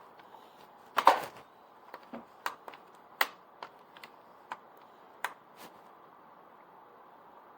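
Sharp plastic clicks and knocks from handling a vacuum cleaner that will not start: a loud cluster about a second in, then single clicks every half second or so, with no motor running.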